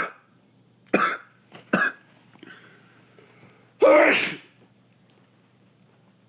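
A man sneezing from a tickling nose: two quick, sharp bursts, then one loud, longer voiced sneeze about four seconds in.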